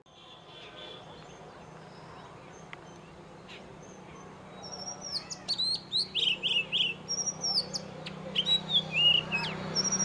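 Male Oriental magpie robin singing, starting about halfway through: quick, varied phrases of clear whistled notes that slide up and down.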